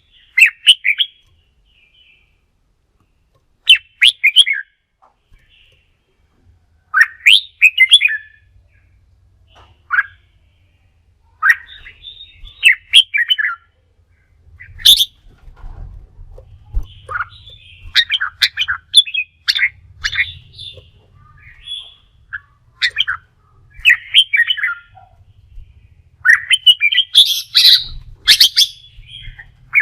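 Red-whiskered bulbul singing: short, bright, warbling phrases, with gaps of a second or two at first and coming almost without pause in the second half.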